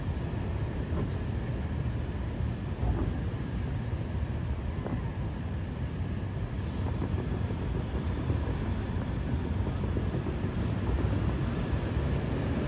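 Distant fireworks over the harbour, heard as a continuous low rumble with a few faint pops.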